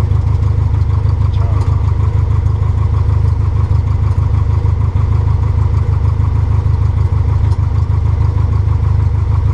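Light aircraft's piston engine and propeller running steadily at low taxi power, heard from inside the cabin as a constant low drone.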